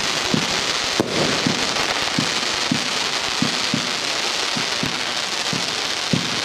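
Fireworks firing a string of shots that rise with glowing tails: muffled launch thumps come about twice a second over a continuous hiss, with one sharper crack about a second in.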